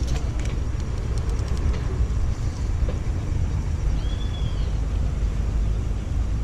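Wind rumbling on the microphone, a steady low noise throughout, with a few light clicks in the first two seconds and a short high whistling tone about four seconds in.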